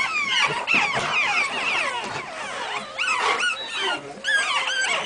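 A litter of five-week-old pug puppies whining and yelping together: many high-pitched, overlapping cries that rise and fall with no break.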